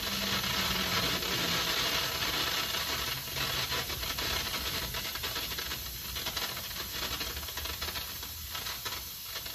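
Instant Pot electric pressure cooker venting steam in a quick release through its valve, muffled under a dish towel: a steady hiss that slowly fades as the pressure drops.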